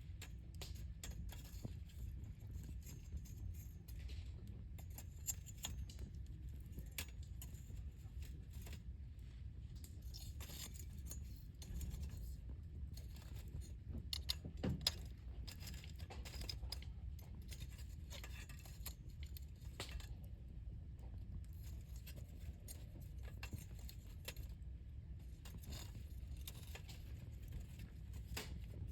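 Wood campfire crackling: scattered sharp pops and snaps of burning wood over a low steady rumble, with one louder pop about halfway through.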